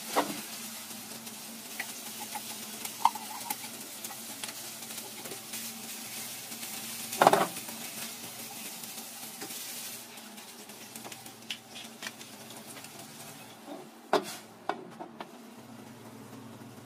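Shredded crab meat sizzling in oil in an aluminium saucepan, stirred with a wooden spatula, with scattered knocks of the utensil against the pan; the loudest knock comes about seven seconds in. The sizzle grows quieter about ten seconds in.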